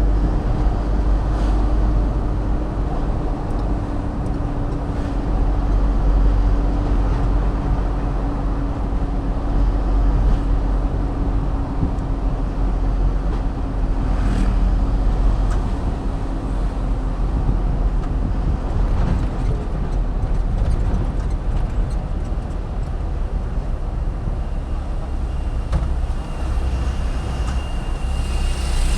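Road noise inside a moving vehicle: a steady low rumble of engine and tyres, with a faint steady hum that fades out after about eighteen seconds.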